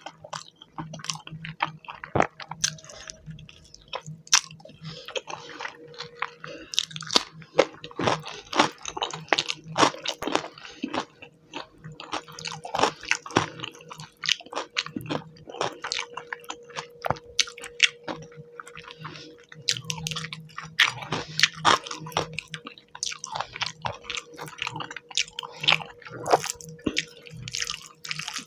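Close-miked eating of fish curry and rice with the hands: wet chewing, lip smacks and squishing, as a dense, irregular run of small clicks, over a faint steady hum.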